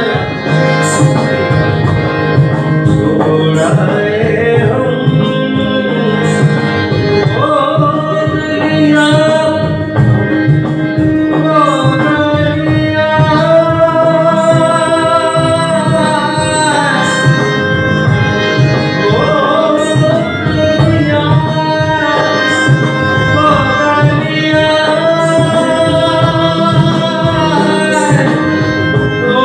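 A man singing a slow Indian song live to his own harmonium, holding long notes, with a drum keeping the beat.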